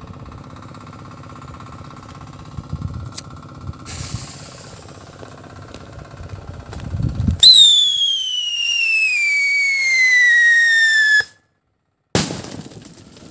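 DIY scream whistle firecracker going off: a hiss, then a loud piercing whistle that falls steadily in pitch for about four seconds and stops abruptly. A sudden loud report comes about a second later. A low engine hum runs under the first part.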